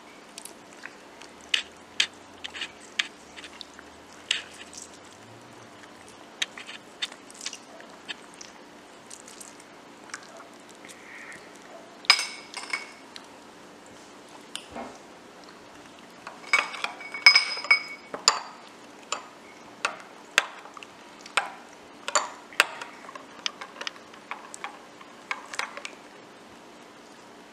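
Metal spoon stirring a thin liquid sauce in a small glass bowl, clinking against the glass again and again at an uneven pace. A few louder clinks ring out briefly, around twelve and seventeen seconds in.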